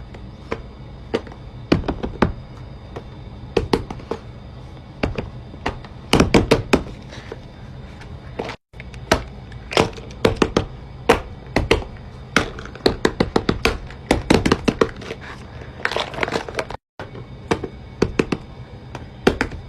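Fidget toys being pressed and popped by fingers: sharp clicks and pops in quick runs and clusters. The sound drops out to silence briefly twice, a little under halfway and again later on.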